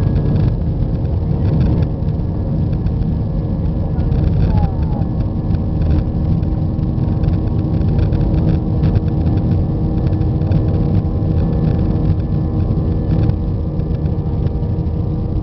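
Airbus A320 cabin noise while taxiing: the engines give a steady hum with several held whining tones over a low rumble, with no run-up in pitch.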